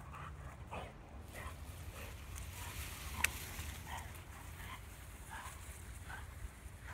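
Faint, scattered rustling of a Labrador retriever dragging a long tree branch over grass, over a steady low rumble, with one sharp click about three seconds in.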